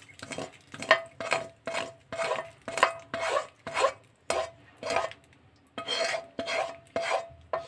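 A spatula scraping the inside of a tilted wok in short repeated strokes, about two a second, each stroke leaving a faint ring from the pan, as the last of the tempering oil is scraped out into a bowl of chutney.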